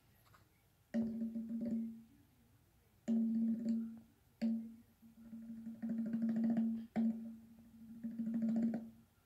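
Cartoon snoring sound effect: repeated snores, each a buzzy rattle and a steady pitched hum that starts abruptly, with short quiet gaps between them.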